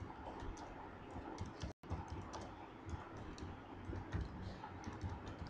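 Computer keyboard being typed on: a quick, irregular run of faint key clicks, broken by a split-second dropout just before two seconds in.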